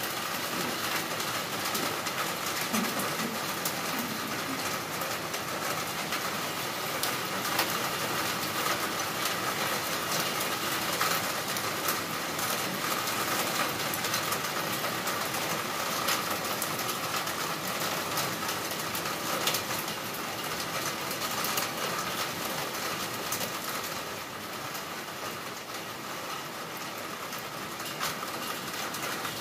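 Heavy rain falling steadily, a dense hiss peppered with sharp clicks of drops striking close by, easing slightly near the end.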